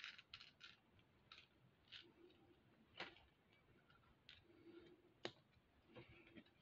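Faint, scattered clicks and clinks of small metal jump rings being dropped into a clear plastic storage tube as it is capped, with two sharper clicks about three and five seconds in.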